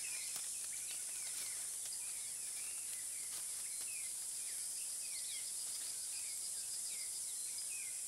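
Rainforest ambience: a steady high-pitched insect hiss with short falling chirps repeating about twice a second.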